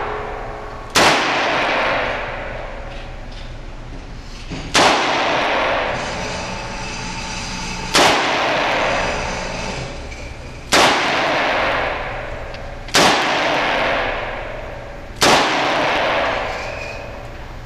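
Gunshots from a firearm on a range: six single shots a few seconds apart, each loud crack followed by a long echoing tail.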